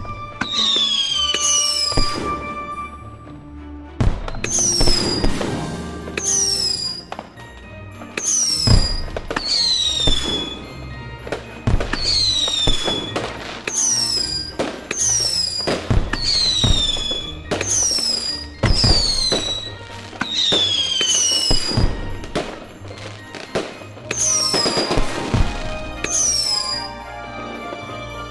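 Fireworks going off in quick succession, with more than twenty short falling whistles, roughly one a second, among sharp bangs and crackle. There is a brief lull around four seconds in and another near twenty-three seconds.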